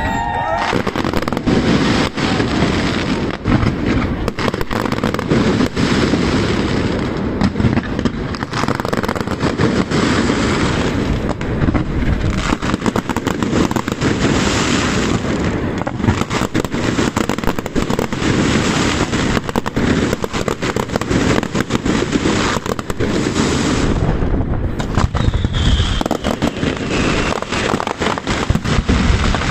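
Castillo aerial fireworks display by Pirotecnia Zarzoso: a dense, unbroken barrage of shell bursts and crackling.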